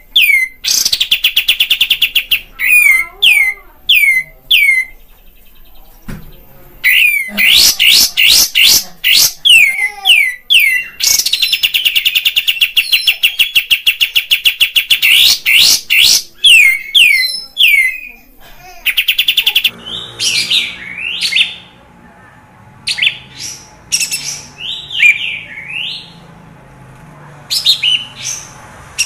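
Kapas tembak bulbul song: loud runs of sharp, quickly falling whistled notes and fast trills. About two-thirds of the way through it changes to a more broken, varied chatter over a faint steady hum.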